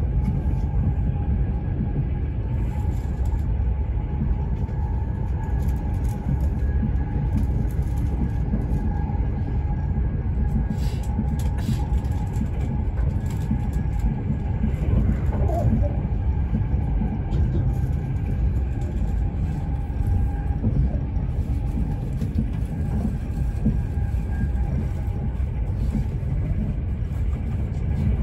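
Passenger train in motion, heard from inside the carriage: a steady low rumble of wheels on rails, with a faint steady whine above it.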